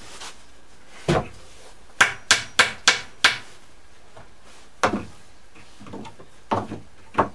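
Hammer striking nails in a wooden pallet: about nine sharp blows, with a quick run of five in the middle and single knocks before and after.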